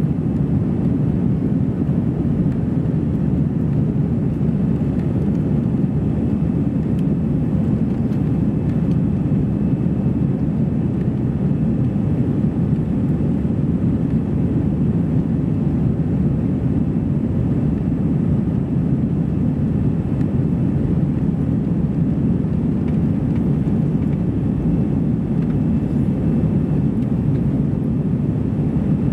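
Steady roar inside the cabin of an Airbus A320-200 climbing after takeoff: engine and airflow noise, deep and even, with no change in level.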